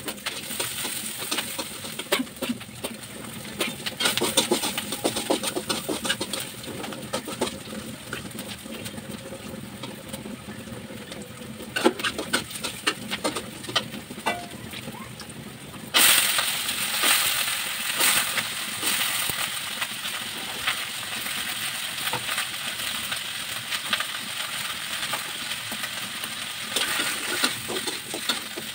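Vegetables sizzling in hot oil in an aluminium karahi, with a metal spatula scraping and clicking against the pan as they are stirred. About halfway through, the sizzling gets suddenly louder as green chilies go into the pan.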